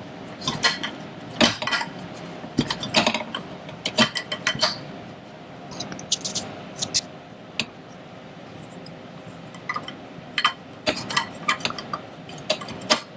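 Small metal hardware clinking and rattling as nuts are handled and fitted onto the bolts of a metal TV wall-mount bracket, in irregular sharp clicks.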